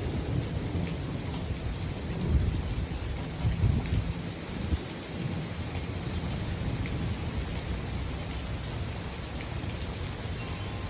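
Steady rain falling with low rolling thunder. The rumble swells about two and a half seconds in and again around three and a half seconds.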